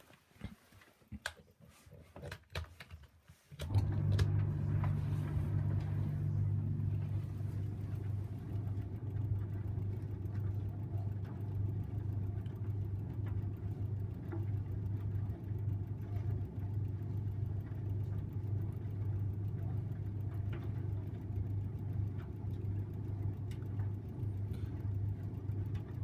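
A few clicks, then about three and a half seconds in a 1984 Parnall Autodry tumble dryer starts up and runs with a steady low hum from its motor and turning drum.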